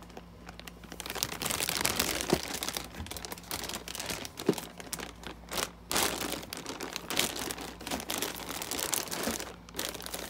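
Clear plastic parts bags crinkling and rustling as a hand handles and presses them: faint for about the first second, then a dense run of irregular crackles.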